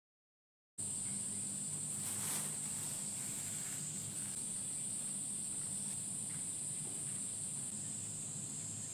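Cicadas in summer shrilling steadily in one continuous high-pitched drone, cutting in suddenly about a second in, with a low steady hum underneath and a brief rustle about two seconds in.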